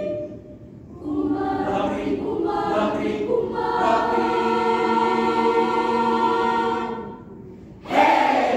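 Mixed choir singing in harmony: a chord is released, a new phrase enters about a second in and settles into a long held chord that fades out around seven seconds. Near the end comes a short, loud burst of sound.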